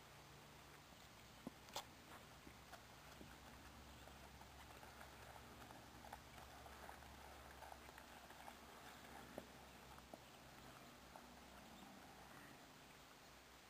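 Faint, irregular hoofbeats of a horse being ridden over grass, with a few sharper clicks, the sharpest about two seconds in.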